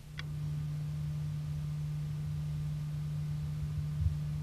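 A steady low hum, one unchanging tone starting suddenly and holding without a break, over a faint uneven rumble.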